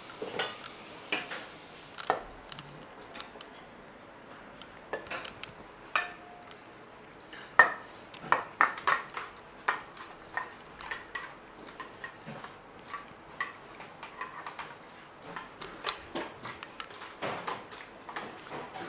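Dishes and utensils clinking and knocking as they are handled, in short irregular strikes that grow busier about five seconds in.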